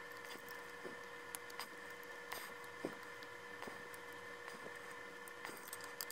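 Faint, scattered clicks and taps of small plastic and metal toy-car parts being handled and pressed together, the sharpest click near the middle, over a steady faint hum.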